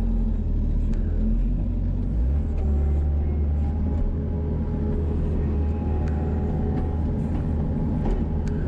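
Tractor engine running steadily with a low rumble, its note shifting slightly about two seconds in.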